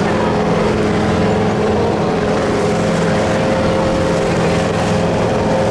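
Motorboat engine running steadily under way, a constant hum over the rush of wind and water.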